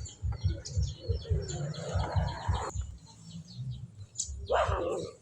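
High, bird-like chirping over a steady low pulsing, about four pulses a second. A swell of noise stops suddenly about two and a half seconds in, and a louder sound comes near the end.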